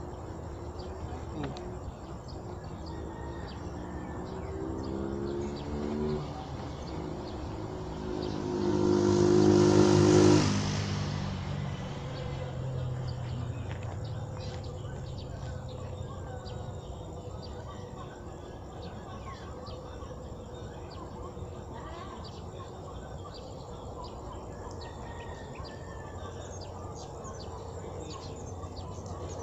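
A motor vehicle drives past: its engine grows louder to a peak about ten seconds in, then fades as its pitch drops. Faint high chirps and ticks go on in the background, more of them in the second half.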